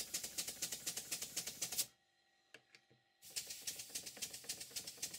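Vintage horizontal twin-cylinder model steam engine running, giving a rapid, even ticking beat. The beat cuts out for about a second around two seconds in, then resumes.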